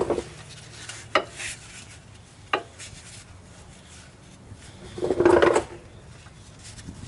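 Metal parts of a GM 10-bolt rear differential clinking and scraping as they are handled inside the open housing: a few sharp clinks in the first few seconds, then a longer scrape about five seconds in.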